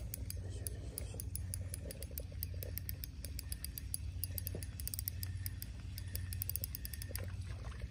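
Small spinning reel being wound slowly, a continuous run of fine, irregular mechanical clicks from its gearing, over a low steady rumble.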